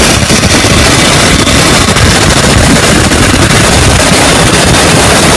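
Vertical bandsaw cutting through thin sheet metal: a loud, steady, harsh noise of the blade running through the metal.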